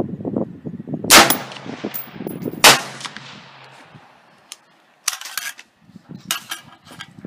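Two shots from a 20-inch AR-15 chambered in 6x45 (6mm-223), about a second and a half apart, each a sharp crack with a short echo, firing 100-grain Sierra Pro Hunter handloads. A few light metallic clicks follow a few seconds later as the rifle is handled.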